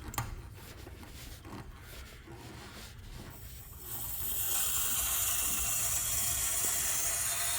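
Cold supply water rushing into a gas water heater tank to flush sediment out through the open drain. After a few faint clicks, a steady hiss builds up about four seconds in and holds.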